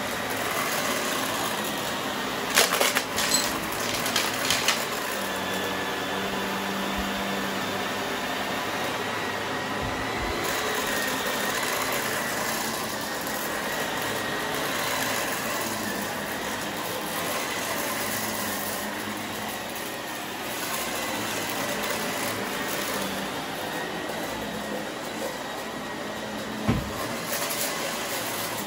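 Vacuum cleaner running steadily over carpet, its motor giving a thin steady whine. A cluster of sharp crackles a few seconds in, and a single knock near the end, come as crunchy confetti is sucked up.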